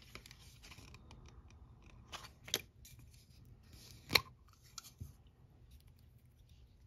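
Nail-stamping scraper dragged across a metal stamping plate in a few short scratchy strokes, with sharp clicks. The loudest click comes about four seconds in.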